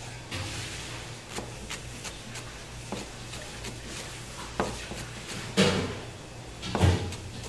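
Large kitchen knife slicing a pile of leafy greens on a plastic cutting board: irregular knocks of the blade striking the board, with two heavier knocks near the end, over a steady low hum.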